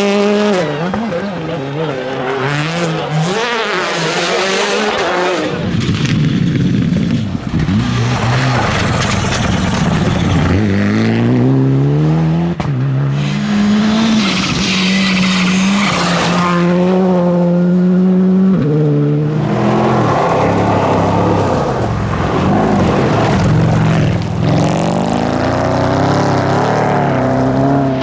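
Rally cars at full throttle, several in turn: the engines rev up through the gears and lift off again, with bursts of rushing tyre noise in between.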